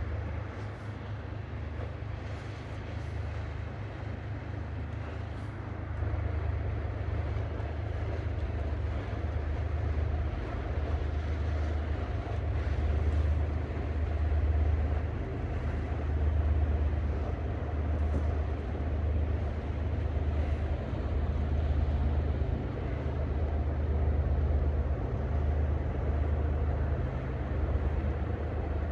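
Diesel engines of a Rhine container pushed convoy running as it passes: a low, steady drone that grows louder and throbs in slow swells from about six seconds in.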